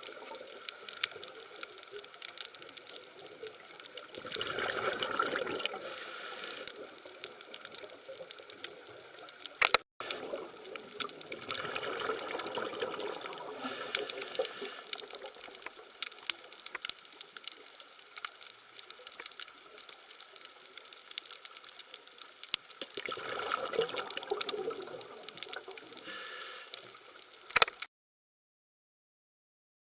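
Bubbling, gurgling water ambience that swells and fades several times, with a brief break about ten seconds in. It cuts off to silence shortly before the end.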